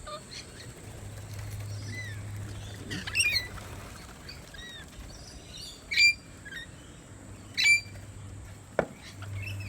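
Birds chirping and calling, with two loud, short squawks about six and seven and a half seconds in.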